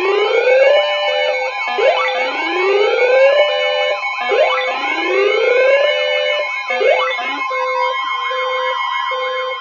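Several siren sounds layered together: rising wails repeat about every two and a half seconds over steady and pulsing alarm tones, and a fast yelp-style warble takes over after about seven seconds.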